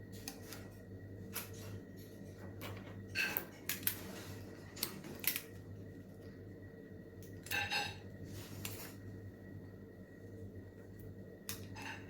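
Scattered light clicks and taps of small metal tools and phone parts being handled on a workbench while a battery is fitted into an opened iPhone 6, over a steady low hum.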